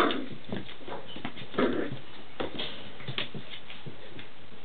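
Standard Schnauzer puppies, six weeks old, crying out as they play-fight. One short loud cry comes right at the start and another about a second and a half in, with fainter yips and the light clicks of paws scrabbling between them.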